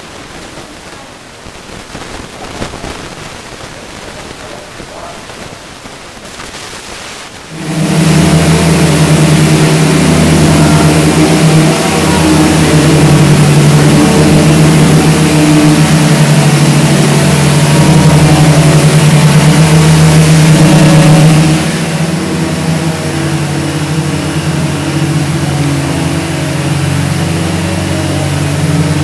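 Handheld electric palm sander running on a wooden kayak hull: it starts suddenly about a quarter of the way in with a loud, steady motor whir, and runs a little softer for the last several seconds.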